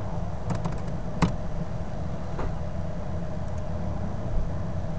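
Computer keyboard and mouse clicks: a few quick key taps about half a second in, a louder click just after a second, then single clicks spaced out, over a steady low hum.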